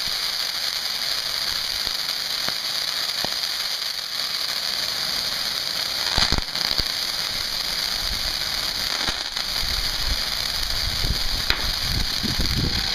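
Ground fountain fireworks spraying sparks with a steady high hiss, broken by a few sharp pops, the loudest about six seconds in.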